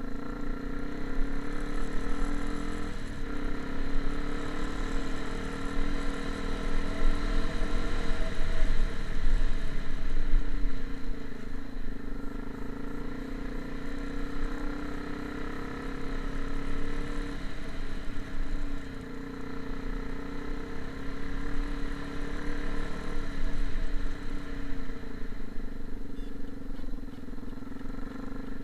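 A motor vehicle's engine running at a fairly steady speed, its pitch rising and falling slightly.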